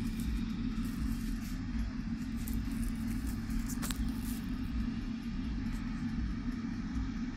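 Air fryer running just after being switched on, its fan giving a steady hum.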